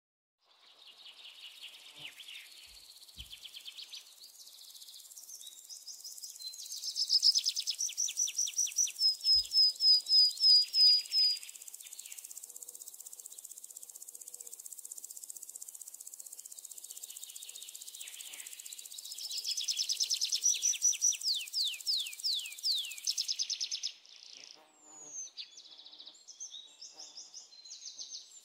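Outdoor birdsong in loud repeated trills and downward-swept chirps over a steady high insect buzz, which cuts off suddenly near the end, leaving scattered chirps.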